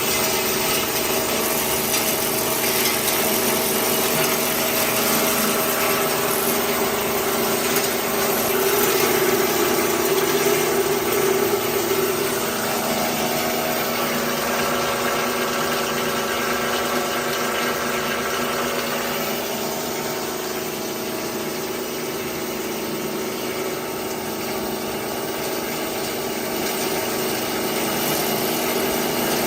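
Brightsail BSC-300 coarse crusher running, a steady dense machine noise with motor hum, crushing walnut shells into granules.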